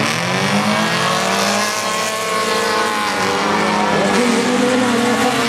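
A pack of race car engines at full throttle as the cars launch off the start line together and accelerate hard, several engine notes overlapping and sliding up and down in pitch.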